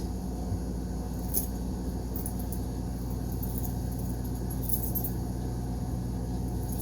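Metal pocket knives being handled, giving a few light metallic clinks over a steady low hum.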